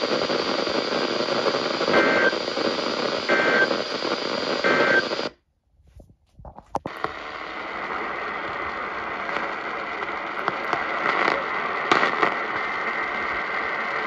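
Sangean weather alert radio's speaker playing a weak, noisy signal: hiss with three short beeps about a second and a half apart. Midway the sound drops out for about a second and a half, then returns as AM static on 1140 kHz, a steady hiss with scattered crackles.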